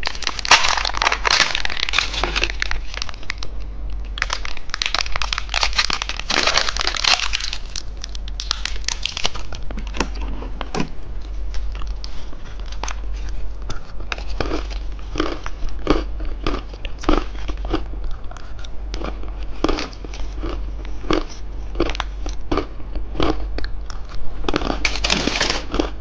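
Plastic wrapper of a candy surprise egg crinkling and tearing as it is unwrapped, in bursts near the start, in the middle and near the end. Between them comes a run of separate small clicks and taps.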